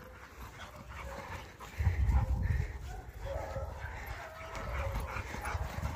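Several dogs playing rough while chasing a dog that carries a ball, with drawn-out whines and barks in the second half. A loud low rumble about two seconds in.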